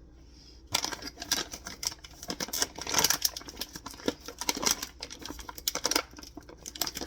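A run of rapid, irregular clicks and clatters of hard objects being handled, starting about a second in.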